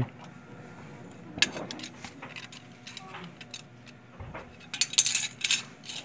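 Sharp clicks and light clatter of desktop RAM modules being removed from their motherboard slots and handled: one sharp click about a second and a half in, then a quick run of clicks near the end.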